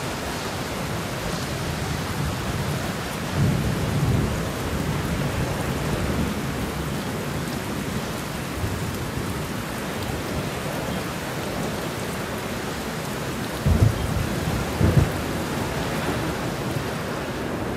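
Rain falling steadily on a windowsill: an even, continuous hiss of drops. Brief low thumps come about three and a half seconds in and twice more around fourteen and fifteen seconds.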